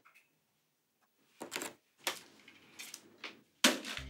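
Sheets of paper being crumpled in short crinkling bursts, ending in a sharper, louder crinkle near the end as the paper is thrown into a metal wastebasket.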